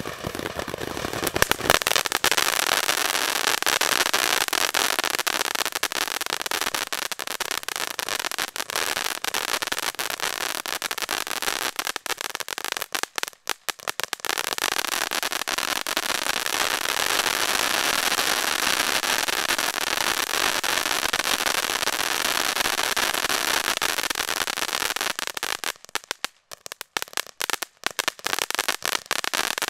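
Shogun 'Tailgate Party' 500-gram firework fountain spraying, a steady hiss thick with crackling pops. It drops away briefly twice, about halfway through and again near the end, then picks up again.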